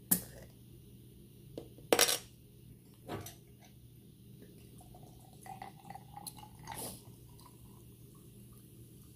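Glass knocking and clinking from a glass soda bottle and an ice-filled glass mug, with a sharp loud clink about two seconds in. Soda is then poured over the ice, with small splashing clinks between about five and seven seconds in.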